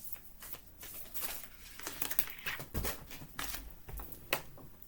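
Oracle cards being handled: a run of short, irregular rustles and flicks of card stock as a card is drawn from the deck.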